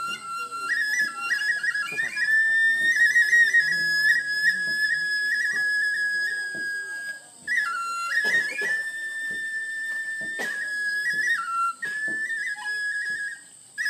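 Balinese bamboo flute (suling) playing a long, held melody, stepping between a few high notes with quick trills and brief breaks for breath. A couple of sharp clicks sound partway through.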